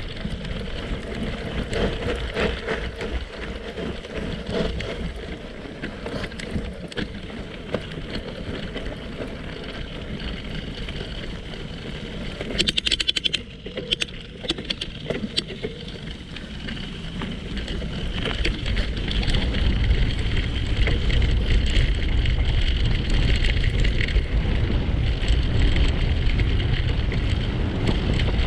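Wind rushing over the microphone with tyre rumble on gravel while riding along a forest road. A quick run of sharp clicks comes about thirteen seconds in, and the rush grows louder over the last third.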